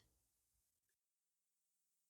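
Near silence: the sound drops out almost completely, with only a very faint electrical hum left.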